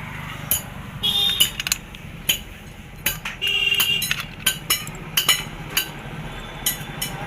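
Metal tools and engine parts knocking and clinking during hand work on a motorcycle clutch, with a couple of brief metallic rings.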